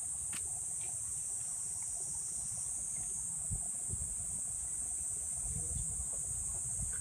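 A summer insect chorus giving a steady, unbroken high-pitched buzz, with a low rumble of light wind on the microphone.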